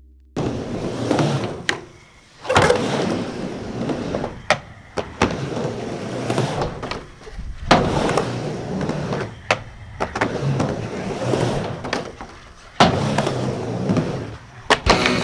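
Skateboard rolling back and forth on a quarter-pipe ramp, the wheel roll broken by sharp clacks and knocks as the board and trucks strike the ramp and coping, several times over.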